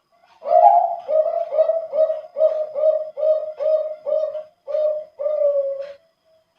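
Male zebra dove (perkutut, Bangkok contest line) singing one full song phrase in a deep, full voice: a longer opening coo, a run of about eight short coos at a steady pace of roughly two a second, and a longer, slightly falling closing coo.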